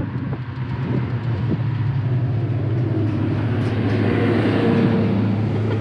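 1991 Volkswagen Jetta's engine and road noise heard from inside the cabin while driving: a steady drone whose pitch climbs over the second half as the car speeds up.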